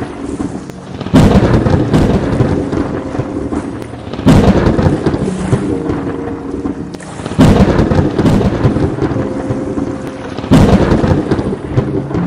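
Thunderstorm: four sudden claps of thunder about three seconds apart, each fading into a rumble, over steady rain.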